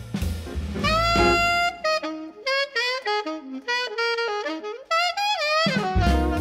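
Background instrumental music with a pitched lead melody over bass and drums; the bass and drums drop out about two seconds in and come back near the end.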